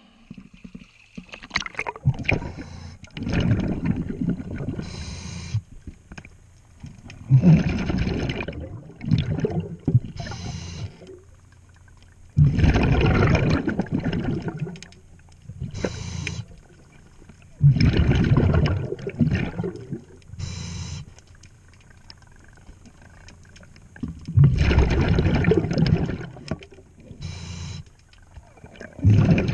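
A scuba diver breathing underwater through a regulator: a long bubbling burst of exhaled air about every five seconds, with a shorter hiss of the regulator between the bursts.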